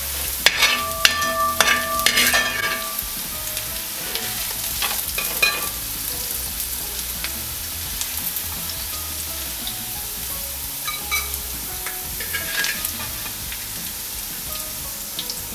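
Sliced ginger, garlic, green chillies, shallots and curry leaves sizzling in oil in a wide metal pan, while a metal spoon scrapes and clinks against the pan, briefly ringing it. The scraping is busiest in the first few seconds and comes back now and then as the fried aromatics are scooped out of the pan.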